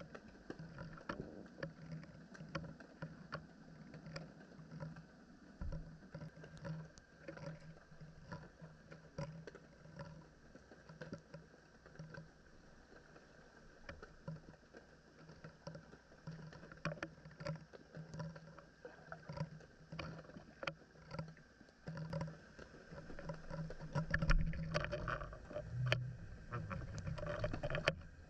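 Water lapping and splashing against a kayak hull as the kayak moves, with many small ticks and knocks. It gets louder near the end.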